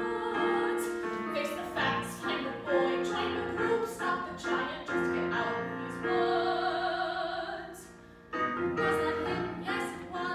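A woman singing a musical theatre song live, accompanied by a digital piano. About six seconds in she holds one long note with vibrato that fades away, then voice and piano start again just after eight seconds.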